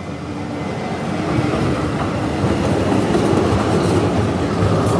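A city tram passing close by on street rails, its running noise growing louder as it draws alongside. There is one sharp click near the end.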